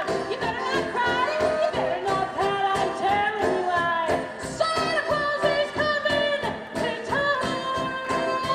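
Christmas show music: voices singing a melody over full instrumental backing.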